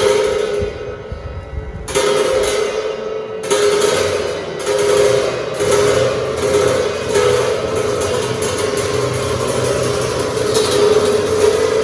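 Tibetan monastic ritual music accompanying a cham dance: long held wind-instrument tones with cymbal crashes and drum strokes about every second or so.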